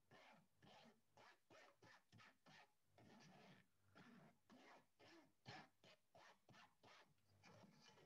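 Faint, repeated scraping of thick brown sauce being worked through a mesh sieve, at about two or three strokes a second.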